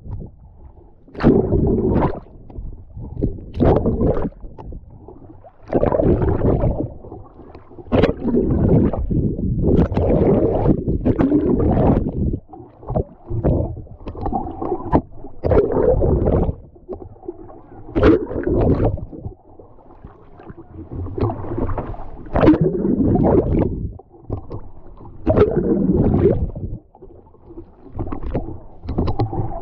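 Lake water sloshing and splashing over a camera at the waterline beside a kayak, with muffled gurgling as it dips under. It comes in irregular surges every second or two.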